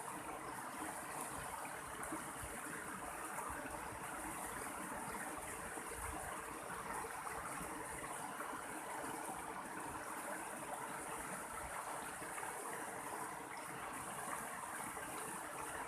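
Mountain stream water flowing steadily, a continuous even rushing.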